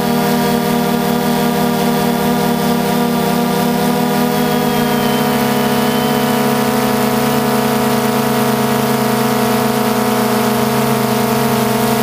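DJI Phantom 2 quadcopter's motors and propellers whining steadily in flight, several pitches sounding together that shift slightly about five seconds in as the rotor speeds change.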